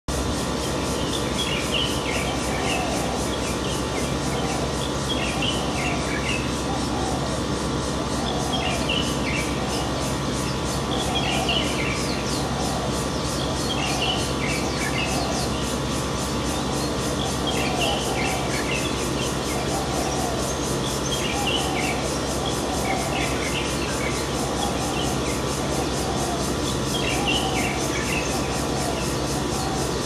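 Dawn bird chorus: a bird's short high song phrases repeating every two to three seconds over a lower call repeating about once a second, with a steady mechanical hum underneath.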